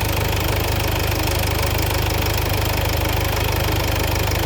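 Mercedes-Benz engine idling steadily close by, with a fast, even knocking rhythm.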